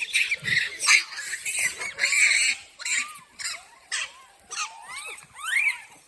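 A monkey making many short, high squeaking calls that rise and fall in pitch. In the first half these are mixed with harsher, noisy sounds and a few sharp clicks.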